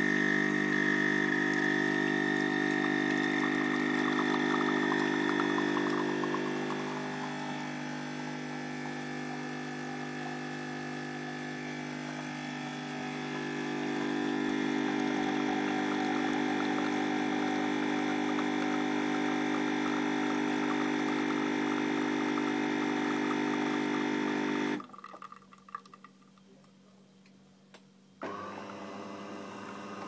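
Automatic coffee machine's pump humming steadily as it dispenses coffee into a mug, a little quieter for a stretch in the middle, then cutting off suddenly; after a few seconds' pause a fainter hum starts near the end.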